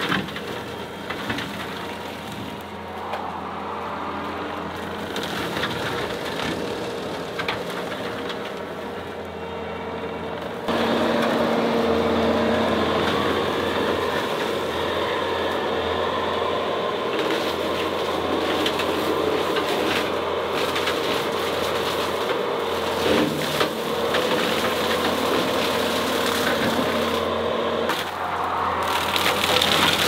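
Skid steer engine running steadily under load as its brush cutter clears a trail, with scattered short cracks. The sound steps up clearly louder about ten seconds in.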